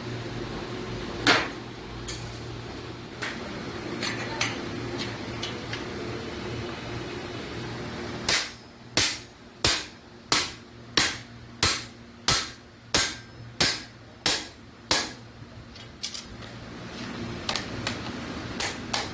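Hammer striking iron sheet metal in a steady run of about a dozen ringing blows, a little under two a second, starting about eight seconds in. Before the run there is only a low steady hum and an occasional single knock.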